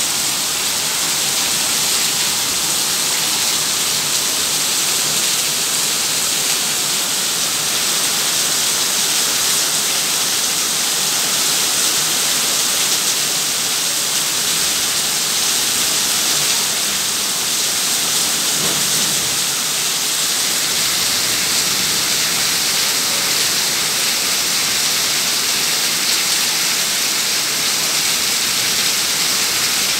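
Heavy rain pouring down steadily, a dense, unbroken hiss of rain on wet paving and standing water.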